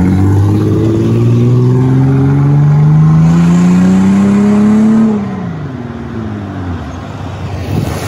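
2006 Honda Pilot's V6 with a leaking exhaust, accelerating away: the engine note rises steadily for about five seconds, then drops in pitch and fades as the SUV moves off down the road.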